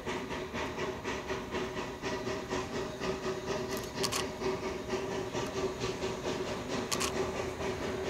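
760 mm narrow-gauge steam locomotive chuffing steadily, its exhaust beats coming about three or four a second over a steady tone.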